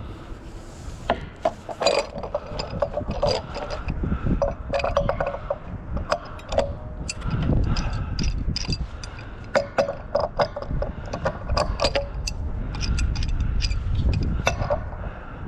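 Loose scrap metal clinking and rattling again and again over a steady low rumble.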